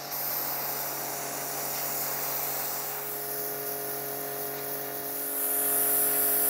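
Güde GHD-225 pressure washer running under load, its 3.2 kW electric motor and brass pump humming steadily while the 0° red-nozzle jet hisses onto a wooden chair. It gets somewhat louder near the end.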